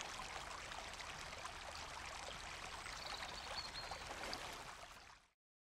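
A shallow stream running over rocks, a steady rush of water that fades out and stops about five seconds in.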